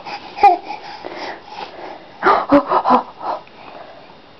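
Baby babbling: a short vocal sound about half a second in, breathy sounds after it, then a run of short babbled syllables a little after two seconds in.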